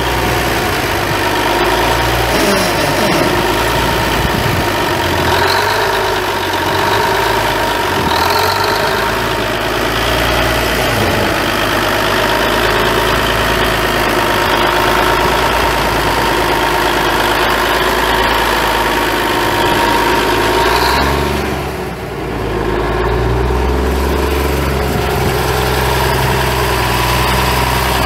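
Cummins N855 six-cylinder diesel engine of a 1976 Versatile 800 4WD tractor running at idle with a steady low drone. About three quarters of the way through the level dips briefly, then the low hum comes back stronger.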